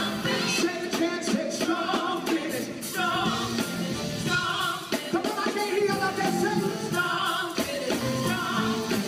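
Live gospel band playing: singers over drums and electric guitar, recorded on a phone.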